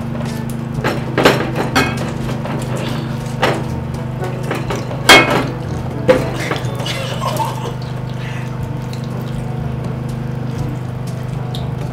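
A glass bottle handled at a dinner table: scattered knocks and clicks as its cap is wrestled with, the loudest about five seconds in, over a steady low hum.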